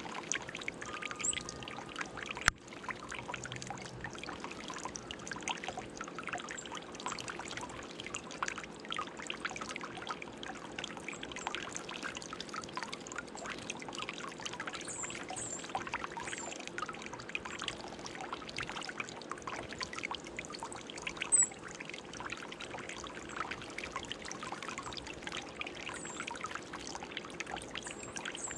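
Water trickling and bubbling steadily in a birdbath fountain, with a chickadee splashing as it bathes. A few faint, short high bird chirps and a sharp click about two and a half seconds in.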